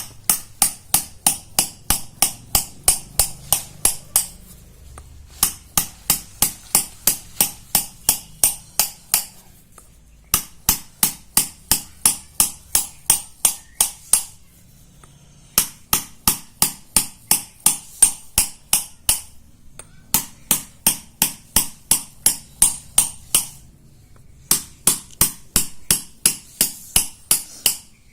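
Quick, even hammer-and-chisel strikes on a shil pata grinding stone, about four to five a second. The strikes come in six runs of a few seconds each, with short pauses between them. They are the sound of small holes being pecked into the stone's grinding face to repair it.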